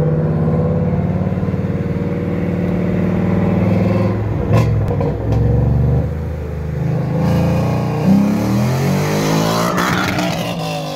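A 2018 Ford Mustang GT's 5.0 Coyote V8 with resonator and cat delete, its exhaust ripping loud at steady revs, then breaking up for a moment about four and a half seconds in. The revs climb again as the car accelerates away near the end.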